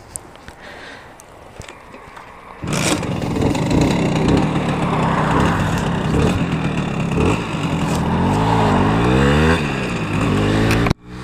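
Simson S51 moped's 50 cc M541 two-stroke single-cylinder engine, coming in suddenly about a third of the way in, then pulling away and accelerating, its pitch rising and dropping back several times as it changes up through the gears.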